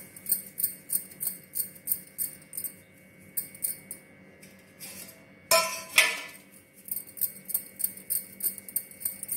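Glass bangles clinking in a quick rhythm, about three light jingles a second, as the hands roll besan ladoo between the palms. This pauses for a few seconds, and about five and a half seconds in there is one louder clank of steel ringing briefly.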